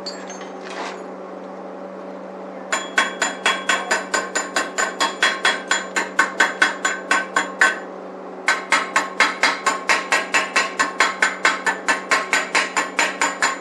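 A hammer striking steel rapidly and evenly, about five blows a second, each ringing metallically, in two long runs with a short pause between them.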